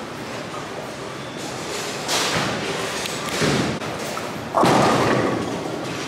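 Bowling alley sounds: thuds of bowling balls and a loud, sudden crash of pins about two-thirds of the way through.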